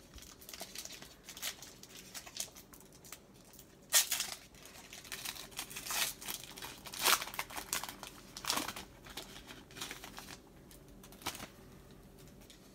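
Foil trading-card pack being torn open and crinkled by hand: a run of sharp crackles, loudest about four and seven seconds in.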